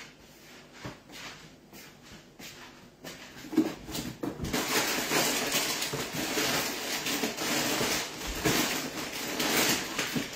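A few light knocks, then from about three and a half seconds in a loud, uneven rustling and crackling of things being handled right next to the microphone.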